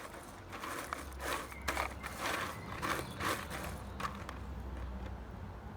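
Cardboard jigsaw puzzle pieces being rummaged through by hand: a series of short rustling, scraping rattles over about four seconds, with a low rumble underneath.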